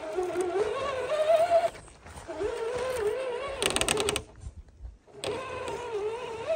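A 1/10-scale RC crawler's electric motor and gears whine as it climbs through snow, the pitch rising and falling with the throttle and stopping twice for a moment. A brief rapid rattle comes just before the second stop, about three and a half seconds in.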